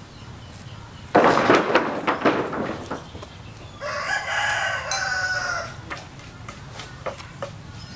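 Rooster crowing: a loud, harsh call starts suddenly about a second in, and a second, drawn-out pitched crow follows around four to six seconds in.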